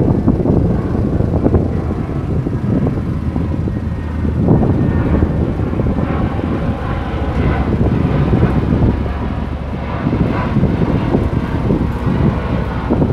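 Wind buffeting the microphone: a gusty, fluctuating low rumble.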